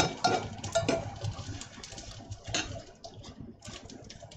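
Metal spoon clinking and scraping against a cast-iron skillet while rice and chicken are stirred, with several ringing clinks in the first second and lighter scrapes and taps after.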